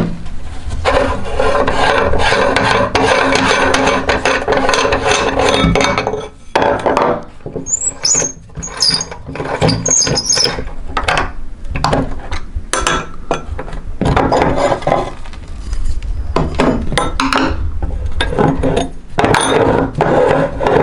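Electric meat grinder running and crunching through cookies, a steady motor hum with grinding noise. In the middle it breaks into a stretch of separate crackles and a few short high squeaks before the steady grinding returns.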